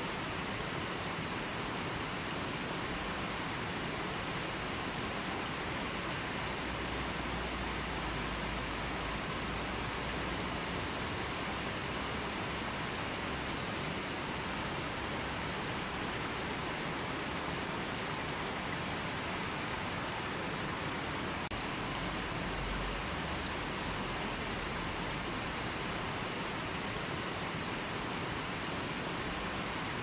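River water rushing over rocks and shallow rapids: a steady, even rush of flowing water that doesn't change.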